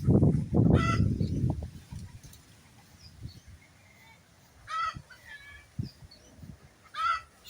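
A loud low rumble for the first second and a half, then a farm bird giving three short honking calls, about one second, five seconds and seven seconds in.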